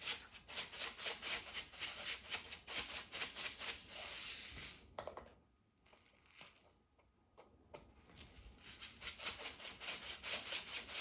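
Sea salt being added to a water-filter vacuum's water basin: a rapid grainy pattering and rustling. It comes in two spells, with a pause of about three seconds between them.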